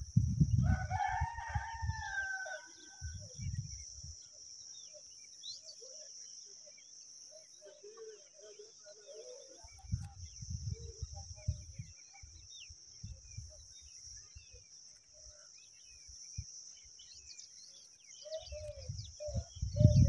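A rooster crows once in the background about half a second in, a single call falling in pitch at the end. A steady high insect drone runs underneath, with bursts of low rumble and a quick run of short repeated calls near the end.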